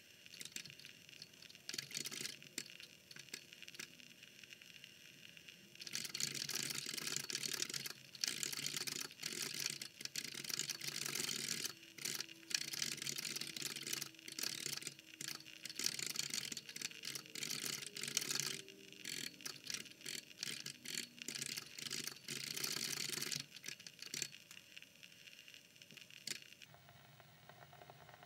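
Typing on an Apple II+ keyboard. At first the keystrokes are scattered. From about six seconds in there is a dense run of fast key clicks, which thins back to occasional keystrokes near the end.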